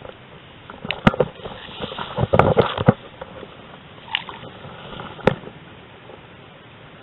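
Handling noise and rustling through grass and reeds: scattered knocks and clicks over a light hiss, with a sharp click about a second in, a cluster of knocks around the middle, and another sharp click near five seconds.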